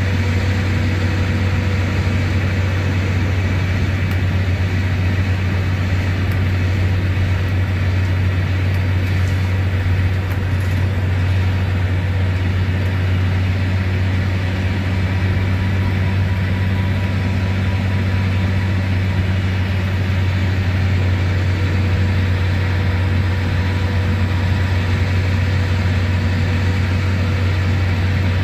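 Mercedes-Benz OM936LA six-cylinder diesel engine of an articulated bus running steadily at motorway cruise, a deep even drone heard inside the cabin through the open rear floor engine hatch.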